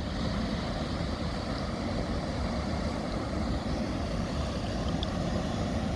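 Steady low rumble of a river container ship's engine as it passes close by.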